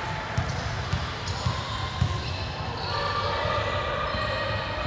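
A basketball bouncing on a hardwood gym floor: about four bounces, roughly half a second apart, in the first two seconds. Voices echo in the large hall throughout.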